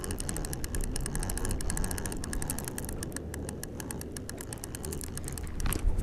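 A small multiplier fishing reel being wound in steadily, its gears ticking rapidly and evenly as a hooked fish is brought to the boat, over a steady low rumble. There is a louder burst of noise near the end.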